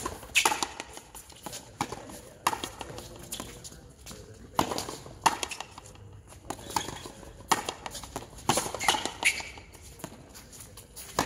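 Frontenis rally: a hard rubber preolympic ball cracking off strung racquets and slapping against the concrete front wall and floor. Sharp knocks come every half second to a second, each with a short echo.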